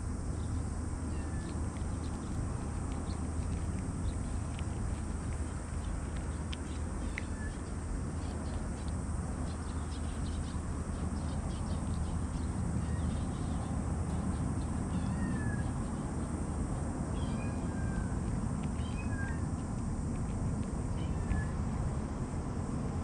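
Stray cats crunching dry kibble close to the microphone, with many quick chewing clicks thickest in the middle. A few short meows come in the second half, over a steady low rumble.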